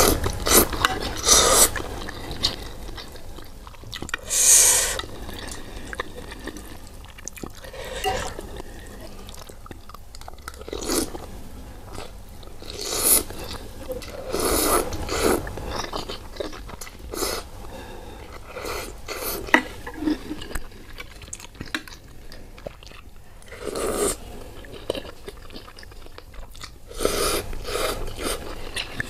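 Close-up eating sounds of spicy soupy instant ramen noodles: loud slurps as the noodles are drawn into the mouth every few seconds, with wet chewing in between.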